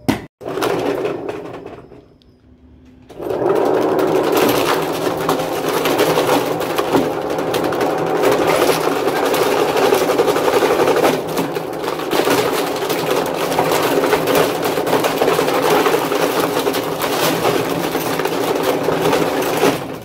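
A sharp knock at the start, then from about three seconds in a wrecked top-load washing machine runs: its motor turns the wash plate in the tub with broken plastic pieces inside, giving a loud, steady rattling mechanical noise that stops abruptly at the end.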